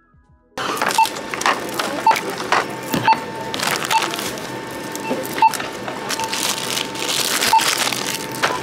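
Store checkout barcode scanner beeping again and again as items are scanned, each beep short and at the same pitch, about once a second. Packaging and goods clatter and crackle as they are handled.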